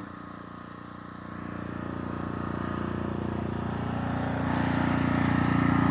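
An engine running with a steady low hum, growing louder from about a second in and then holding steady.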